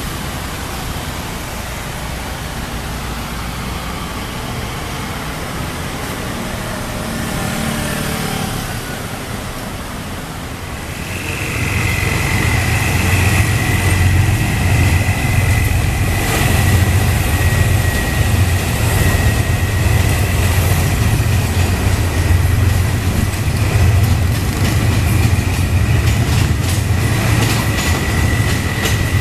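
Steady hiss of rain, then about eleven seconds in a diesel train comes through the level crossing: a heavy, throbbing low engine rumble with a steady high-pitched tone held over it, and wheel clacks over the crossing near the end.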